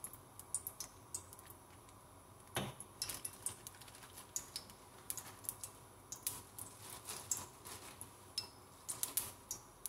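Lard in a frying pan crackling faintly as it heats: scattered small pops and ticks, several a second, with one louder knock about two and a half seconds in.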